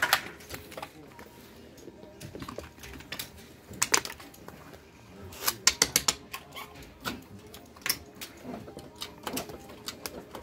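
Casino chips clicking and clacking as they are stacked and set down on the table's betting spots, with a quick run of clicks about five and a half seconds in.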